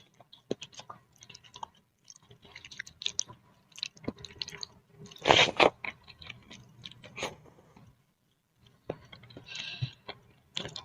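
Close-up eating sounds of a person chewing boiled instant noodles with egg: wet, clicking mouth noises with lip smacks, one louder, longer burst about five seconds in, and a short pause near eight seconds.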